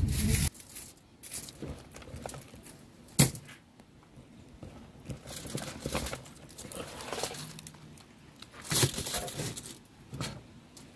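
Aluminium foil crinkling in irregular rustles as roasted lobster halves are set down on it, with one sharp click about three seconds in.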